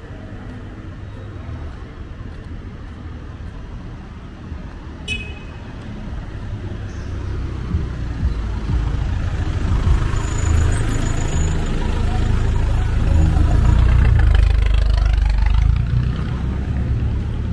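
Street traffic: motor vehicle engines rumbling as they approach and pass close by, getting louder after about eight seconds. A short high chirp sounds about five seconds in.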